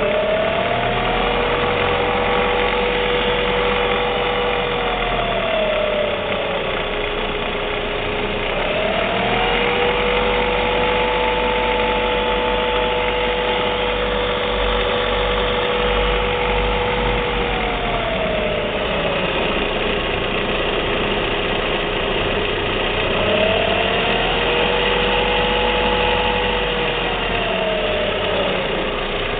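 Saab 9-5 engine running, with a high-pitched whine from the bottom of the engine. The whine rises in pitch, holds for several seconds and falls back, three times over.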